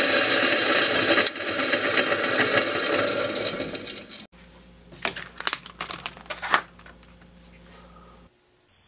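Bench motor spinning a polishing wheel with brass hex stock held against it: a steady whir that cuts off abruptly about four seconds in. After it come a few light clicks and taps of handling.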